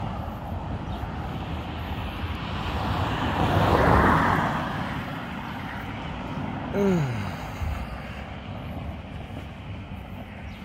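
A road vehicle passing by over steady traffic noise: its noise swells to a peak about four seconds in and then fades away. A brief falling tone comes near seven seconds in.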